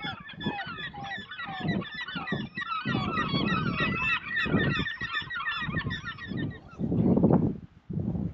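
A flock of birds calling all at once, a dense chorus of overlapping honking calls that stops about six and a half seconds in. Irregular low thumps and rumbles run underneath, the loudest near the end.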